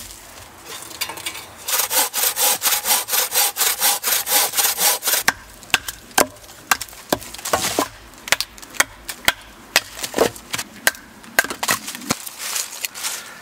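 Small logs being split by batoning: a blade driven through the wood with a wooden baton. First a few seconds of quick, even strokes, about five a second, then sharp knocks at uneven spacing as the wood is split.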